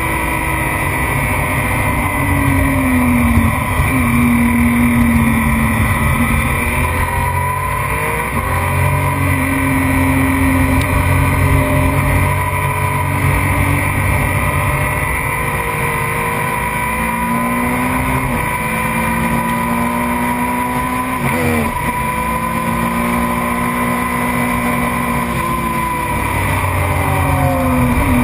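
Race motorcycle engine heard from on board, revving hard and climbing in pitch, then dropping at each upshift. About 21 seconds in, the revs fall sharply in quick steps as it shifts down into a corner, then it climbs again. Wind rush on the microphone runs underneath.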